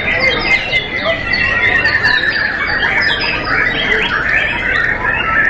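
Many caged young white-rumped shamas (murai batu) singing at once in competition: a dense, unbroken tangle of overlapping whistles, chirps and harsh notes, with a high continuous trill running under it.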